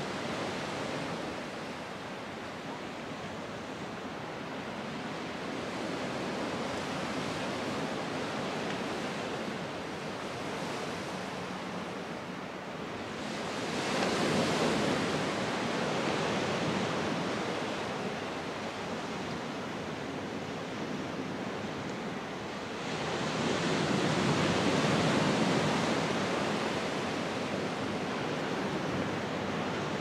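Sea surf washing onto a beach: a steady wash of water, with two louder waves breaking, one near the middle and another about ten seconds later.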